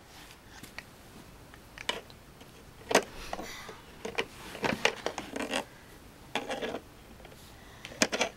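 Hard plastic shape block tapping and knocking against the plastic lid of a toddler's shape-sorter bucket as it is pushed at the holes: a handful of short, sharp clicks, the loudest about three seconds in.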